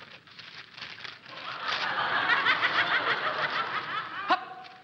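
Studio audience laughing, swelling from about a second and a half in, with a sharp click near the end.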